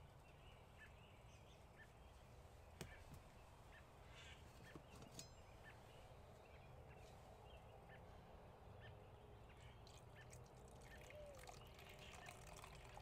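Near silence: quiet tent room tone with faint, scattered bird chirps from outside and a couple of soft clicks.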